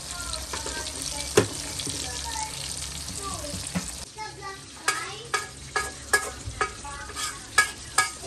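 Chicken lumpia frying in hot oil in a metal pan, a steady sizzle. In the second half a run of about eight sharp clicks comes over the sizzle.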